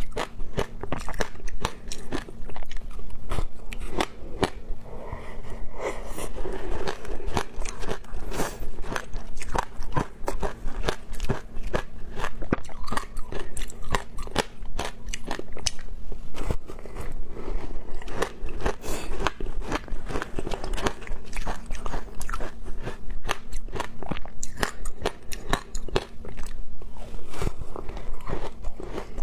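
Biting and chewing a block of frozen shaved ice coated in passion fruit pulp: a dense, continuous run of sharp crunches and crackles.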